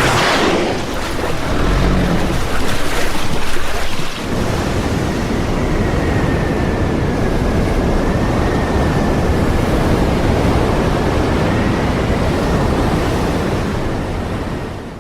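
Ocean surf washing against the shore in a steady, loud rush, with wind buffeting the microphone; a wave surges loudest right at the start.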